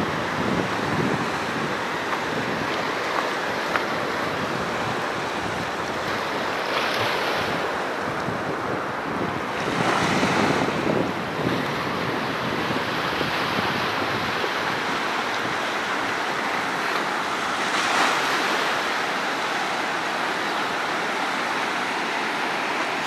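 Sea surf breaking and washing up over sand and rocks, a steady rush that swells louder in a few surges, with wind rumbling on the microphone.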